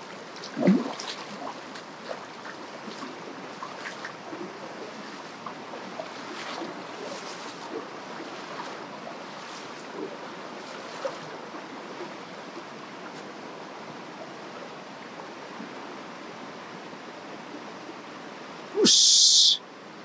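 Shallow river water running over stones and a concrete-lined channel: a steady wash of flowing water with scattered small ticks. A knock about half a second in, and a short, loud, high-pitched hiss near the end.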